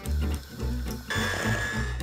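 Background music: a plucked double-bass line in a steady beat. A steady high whine joins about halfway through.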